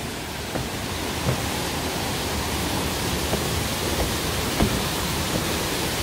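Steady rushing of a large, high-volume waterfall, with a few faint knocks of footsteps on wooden stair treads.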